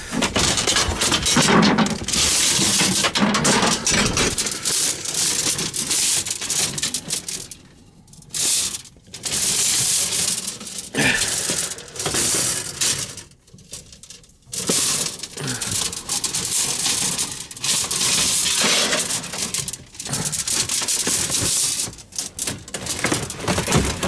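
Rummaging through shelves of coiled pilot tubing and loose metal fittings: coils shifted and pulled, parts clinking, rattling and scraping, with two short lulls about eight and thirteen seconds in.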